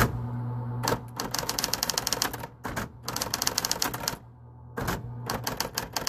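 Smith-Corona Super Correct XT electric typewriter being typed on: quick runs of typebar strikes with short pauses between them, over the steady hum of its motor. The machine is working.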